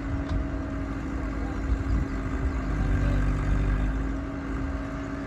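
Diesel engine of a backhoe loader or tractor running steadily, working a little harder for about a second around three seconds in.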